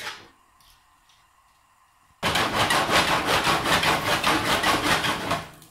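A large frying pan of pasta shaken rapidly back and forth on a gas hob's metal grate, a loud fast rattle of pan on grate that starts suddenly about two seconds in and stops near the end.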